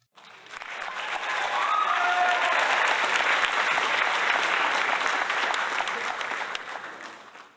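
Crowd applauding, swelling in over the first couple of seconds and fading away near the end, with a few cheers about two seconds in.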